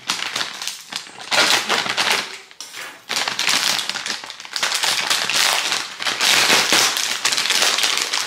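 A thin plastic packaging bag crinkling and tearing as it is slit with a knife and pulled apart by hand. It comes in loud, dense bursts, with short pauses about a second in and near three seconds in.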